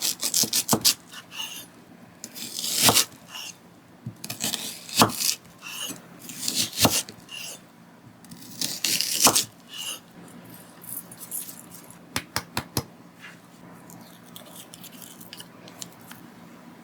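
Food-preparation handling sounds: scraping and rustling strokes broken up by sharp clicks and knocks of utensils, with a quick run of clicks about twelve seconds in.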